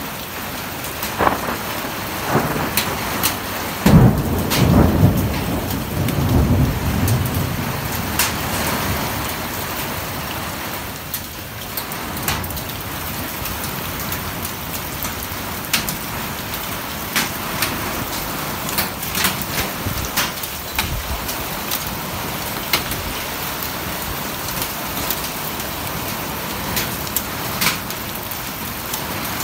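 Thunderstorm: heavy rain falls steadily, with sharp taps of drops striking nearby surfaces. A loud rolling rumble of thunder comes about four seconds in and dies away over the next few seconds.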